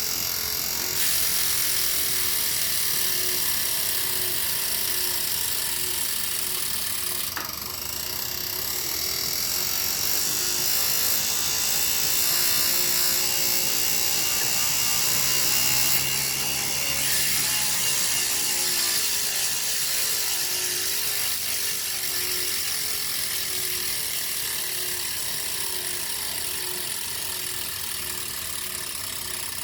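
A machine running continuously with a steady mechanical rattling and clicking, the abnormal noise the owner is complaining about.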